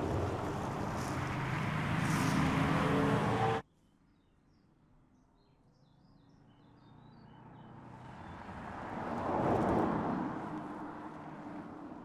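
Electric car's tyre and wind noise at road speed, cutting off abruptly about three and a half seconds in. Faint bird chirps follow, then a car passes, its noise swelling and fading away.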